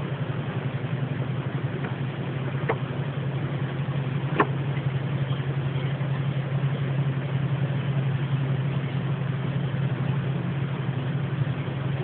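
A steady low droning hum with a faint hiss over it, which the recorder likens to a helicopter and hears as strange because the area is open countryside. Two faint clicks come a few seconds in.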